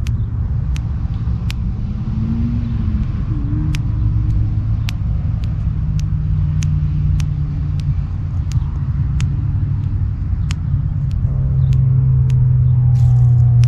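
A thumb joint popping: sharp single clicks at uneven intervals, up to about two a second. Under them is a steady low rumble like a running vehicle, with a louder low hum swelling in near the end.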